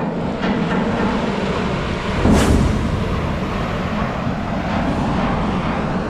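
Sea rushing past a ship's bulbous bow as it cuts through the waves: a steady rushing with a low hum beneath, and one louder surge about two seconds in.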